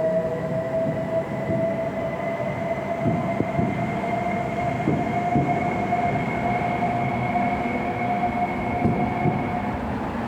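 Toyota RAV4 hybrid driving under electric drive, heard from outside the car: a steady motor whine with a fainter higher tone above it, over road and tyre noise. The whine cuts out near the end.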